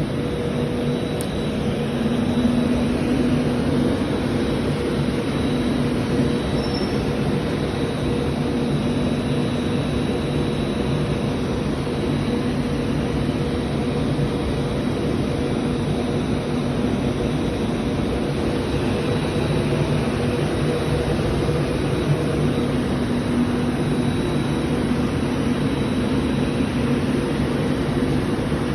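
A train running past, a loud, steady rumble with a low, even hum that holds throughout.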